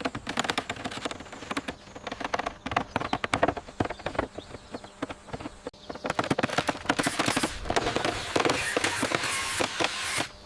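Construction work: many quick knocks, taps and clatters. About six seconds in it turns into a louder, denser rushing noise that stops sharply near the end.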